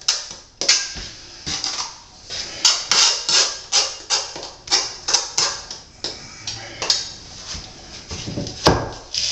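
Repeated short scrapes and clinks of a steel trowel working thin-set mortar while marble tile is set, about two to three strokes a second, with a heavier knock near the end.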